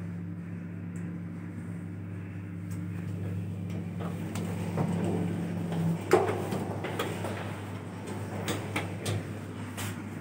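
Hyundai traction elevator car running with a steady hum as it travels, the hum ending about six seconds in with a loud clack as the car stops and the doors open. Several sharp clicks follow near the end as a car button is pressed and the sliding doors close.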